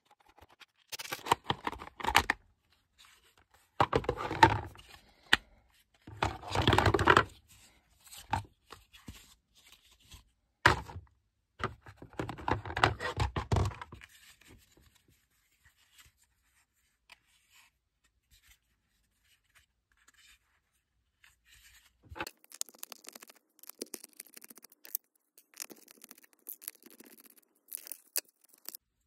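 Hard plastic parts of a large Lego Galidor piece being handled and pried apart: bursts of scraping, rubbing and knocking in the first half, with a sharp click. After a pause come many small, light clicks and taps.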